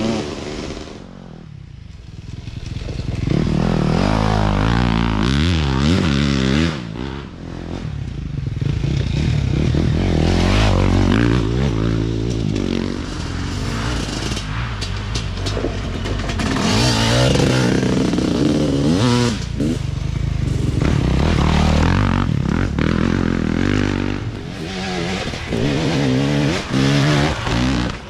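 Off-road racing dirt bikes revving as they pass one after another, engine pitch repeatedly climbing and dropping as riders work the throttle and gears. Quieter for a moment about a second in, then loud again as the next bikes arrive.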